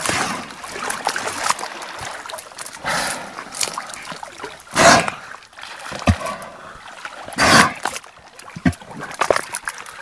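Beluga whales at the surface making a string of short, hissy blowhole sounds, the loudest about five seconds in and again about seven and a half seconds in, with a couple of brief low calls and water splashing around them.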